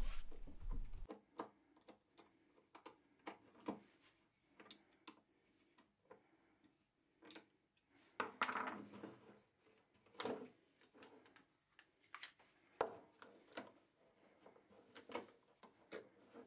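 Scattered small clicks and knocks of a screwdriver and a plywood jig being handled on a plunge router's base, with a brief rub of wood sliding over the base about eight seconds in.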